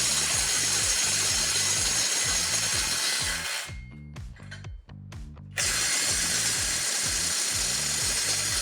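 Kobalt 24V cordless impact driver hammering at full power, trying to break loose a nut torqued to 375 foot-pounds. There are two long runs of impacting, about three and a half and four seconds long, with a short pause between them.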